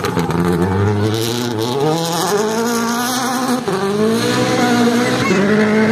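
Rally car accelerating hard past at close range, its engine note climbing through the gears, with quick upshifts about three and a half and five seconds in.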